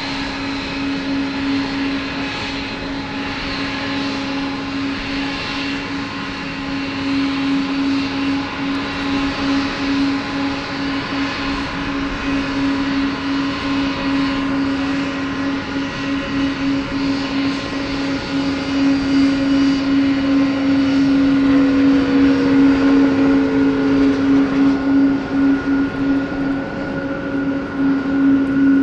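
Boeing 777-200 airliner's twin jet engines idling as it taxis past: a steady engine hum with several whining tones. It grows louder in the second half, while one whining tone falls in pitch as the engines go by.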